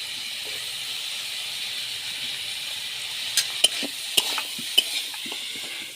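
Chopped vegetables and spices sizzling in oil in a kadai, a steady hiss. A metal spatula knocks and scrapes against the pan several times about three to five seconds in, as the mixture is stirred.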